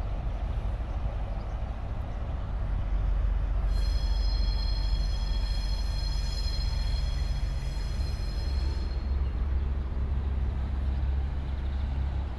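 Train running past with a heavy, steady low rumble. From about four seconds in, a high steady squeal of wheels on the rails sounds over it for about five seconds.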